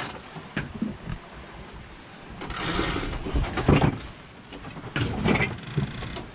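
Sailboat deck gear being worked as the genoa is brought in on its furler: a brief hissing rush about two and a half seconds in, then several knocks and clunks of rigging hardware.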